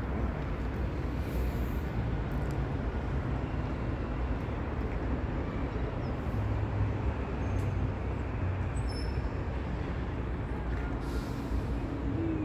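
Steady city street noise with a continuous low rumble of passing traffic.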